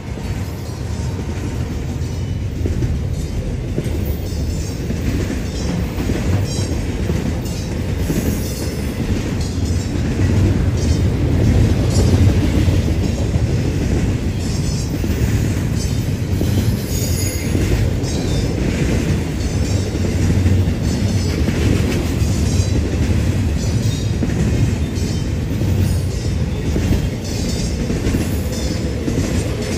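Intermodal freight cars (double-stack container well cars and trailer flatcars) rolling past at track side: a steady low rumble of steel wheels on rail, with a repeated clicking as wheels cross rail joints.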